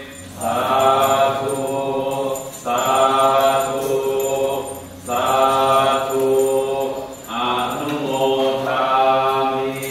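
Buddhist monks chanting Pali together in unison, in four long drawn-out phrases of about two seconds each with short breaks for breath between them.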